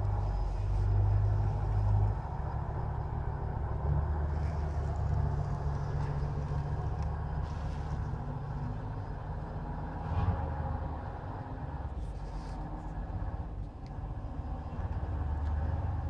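KrAZ six-wheel-drive truck's diesel engine running under load, a steady low rumble, as it tows a trolleybus through snow.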